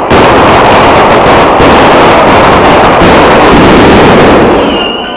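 A batteria of ground firecrackers going off in a dense, unbroken crackle of rapid bangs, loud enough to overload the microphone, easing off a little near the end.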